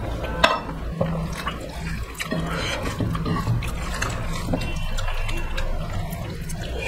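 Hands mixing and squeezing rice with a thin curry on metal plates, with close-up wet chewing of mouthfuls of curried rice.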